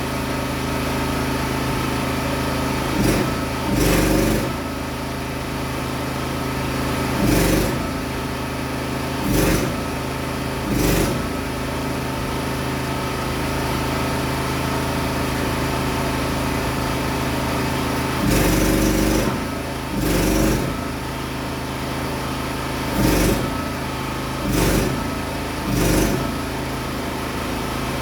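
A machine running with a steady hum, broken by short, louder bursts of noise every one to few seconds.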